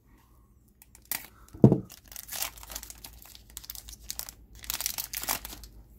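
Foil trading-card pack wrapper being torn open and crinkled by hand: scattered crackling starting about a second in, a dull thump just before two seconds, and denser crinkling near the end.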